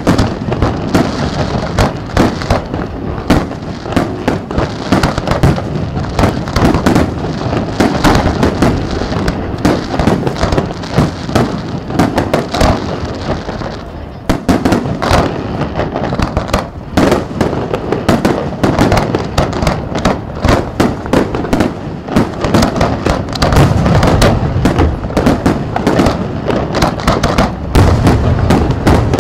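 An aerial fireworks display: a rapid, continuous barrage of loud bangs from shells bursting overhead. There is a brief lull about fourteen seconds in.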